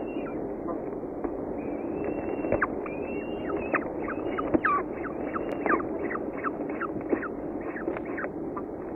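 Falcon chick begging to be fed: a few long, high wailing calls that drop in pitch at the end, then, from about four seconds in, quick short calls at about two to three a second, over a steady low hum.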